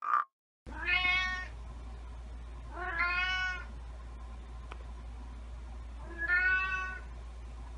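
Domestic cat meowing three times, each meow about a second long, over a steady low hum.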